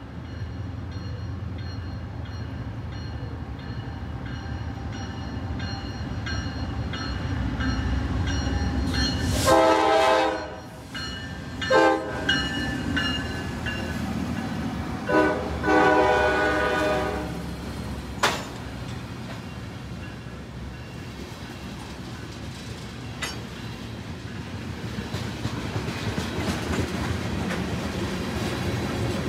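A heavy freight train led by a Norfolk Southern GE C44-9W diesel locomotive approaches with its engines rumbling. It sounds its multi-note horn, a blast about ten seconds in, a short toot, then a longer blast. Loaded tank cars then roll past with a steady rumble and wheel clatter.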